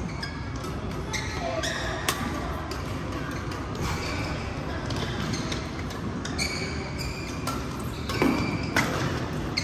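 Badminton rally: sharp racket strikes on the shuttlecock every second or two, with sneakers squeaking on the court floor between shots.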